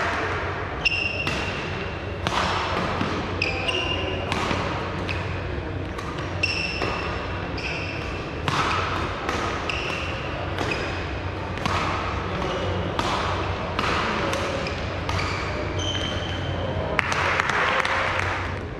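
Badminton rally: sharp racket strikes on the shuttlecock about once a second, mixed with short high shoe squeaks on the court floor, over a steady background murmur in a large hall. A brief rush of noise comes near the end.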